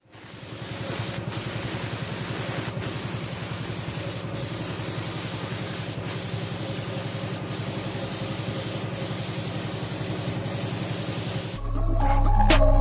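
Compressed-air paint spray gun hissing steadily as it sprays, the hiss dipping for an instant about every second and a half. Bass-heavy music starts near the end.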